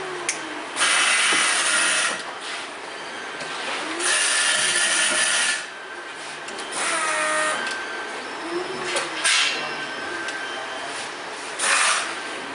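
Weinas ML836 LED moving-head wash light's pan and tilt motors whirring as the head moves, in rising and falling whines. Four louder bursts of mechanical noise come through, two of them over a second long.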